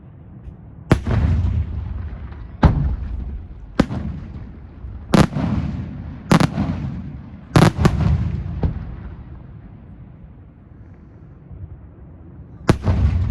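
Aerial fireworks shells bursting: about eight sharp bangs, each trailing a low rumbling echo, coming every second or so, then a pause of a few seconds before one more bang near the end.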